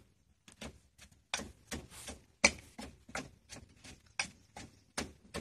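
Wooden pestle pounding in a clay mortar: a steady run of dull knocks, about two to three strokes a second, starting about half a second in, with one louder strike near the middle.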